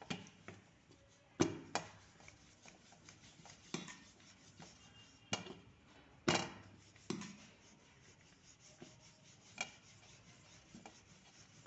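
Wooden rolling pin rolling out dough on an upturned flour-dusted plate: soft rubbing and scraping, broken by about nine irregular sharp knocks.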